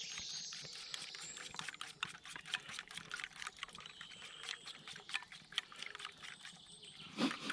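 Raw eggs being whisked with a small plastic utensil in a metal camping pot: a run of quick, irregular light clicks and wet sloshing.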